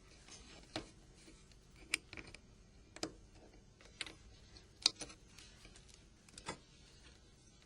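Scattered light clicks and ticks of small plastic phone parts being pried and unclipped: a power button and antenna clips levered free with a plastic opening tool. There are about seven separate clicks, irregularly spaced.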